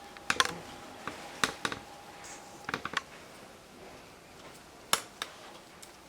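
A few sharp clicks and light taps in small irregular clusters, made by small objects being handled on a work surface.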